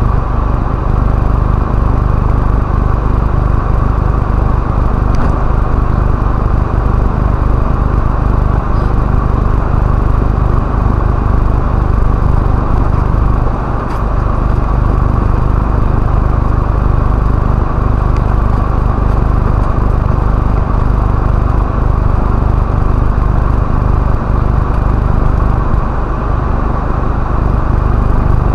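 Steady drone of an OKA four-wheel-drive truck driving at low speed on a dirt road, heard from inside the cab: engine and tyre rumble.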